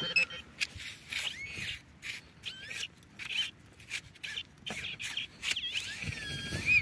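Digging knife stabbing and scraping into clay soil and corn stubble: a run of short scrapes and knocks. A few short rising and falling chirps sound over it, the loudest near the end.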